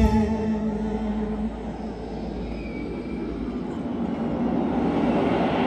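A sung phrase's last held note dies away in the first second and a half. A large concert crowd's cheering then takes over as a steady noise that grows louder toward the end.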